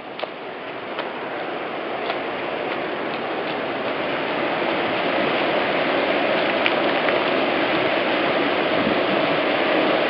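Rushing water of Unchalli Falls, an even, steady rush that fades in and grows louder over the first few seconds, with a few faint clicks near the start.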